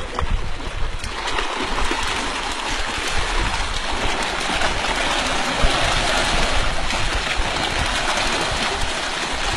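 Continuous heavy splashing and churning of water at the side of a wooden boat, where fish are thrashing at the surface around the bait. It grows louder about a second in and keeps up steadily.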